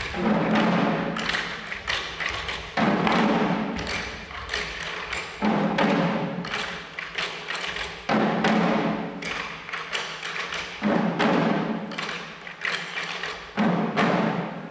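Shishi odori deer-dance drums: the dancers' chest-slung drums beaten in a steady, busy rhythm, with a heavy accented stroke about every two and three-quarter seconds.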